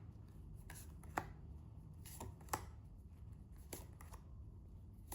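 Tarot cards being drawn from the deck and laid out: faint, irregular clicks and taps of card on card, several over a few seconds.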